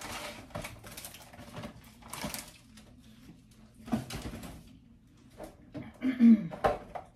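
Rustling and light knocks of things being handled in a small room, with a short burst of a voice about six seconds in.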